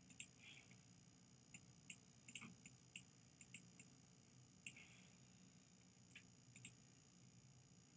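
Faint computer keyboard and mouse clicks: short, irregular clicks, a quick run of them between about one and a half and three and a half seconds in, then a few single clicks, over a low steady hum.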